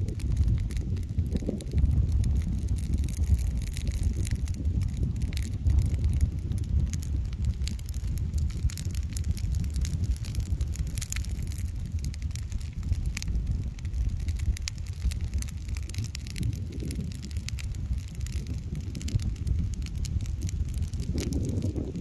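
A pile of dry leaves burning in open flame, crackling with many small irregular snaps, over a steady low rumble of wind on the microphone.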